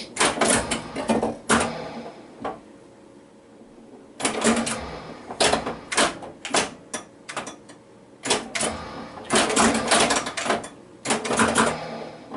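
Flash Gordon pinball machine in play: bursts of sharp mechanical clacking from the ball striking the playfield parts and the coils firing, with short quieter spells between the bursts.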